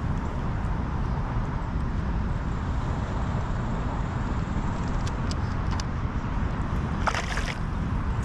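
Steady low rumbling outdoor background noise, with a few faint clicks and a brief high-pitched sound about seven seconds in.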